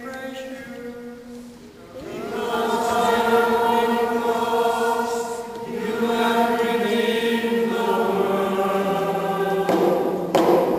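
Slow, chant-like hymn singing with long held notes that move from pitch to pitch. A short burst of noise comes near the end.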